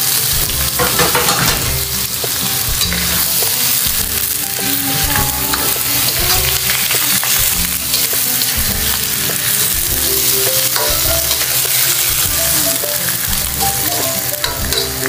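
Whole squid sizzling and frying in hot oil with sautéed onion, garlic and tomato in a non-stick wok, stirred and turned with a metal utensil. The sizzle is steady throughout.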